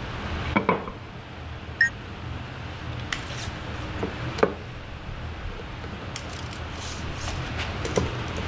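Workbench handling sounds: a few scattered knocks and taps as a wooden strip and a small metal square are set down on a wooden box and a pencil marks the wood, over a steady low shop hum.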